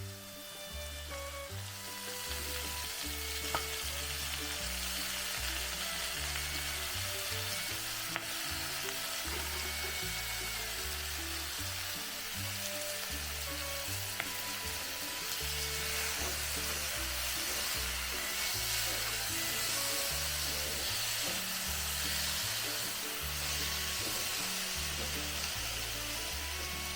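Food sizzling in hot oil in a cooking pan, the hiss building up in the first couple of seconds and then going on steadily, with a few sharp clicks. Background music plays underneath.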